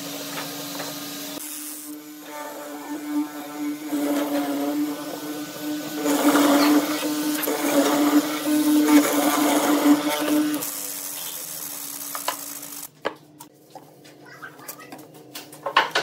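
Hollow-chisel mortising machine's electric motor running with a steady hum as the square chisel is plunged into pine, the cutting loudest from about three to ten seconds in. The motor sound cuts off suddenly about three seconds before the end, leaving scattered light ticks.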